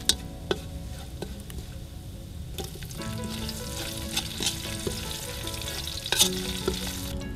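Chopped garlic sizzling in hot oil in a wok as a metal spoon stirs it, with occasional sharp clinks of the spoon against the pan. The sizzle grows louder about three seconds in, as shallots and sliced aromatics go into the oil.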